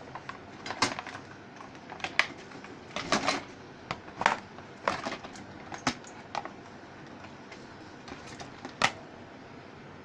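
Hard plastic body parts of a child's ride-on toy clicking and knocking as they are handled and the outer shell is taken off: a dozen or so irregular sharp clacks.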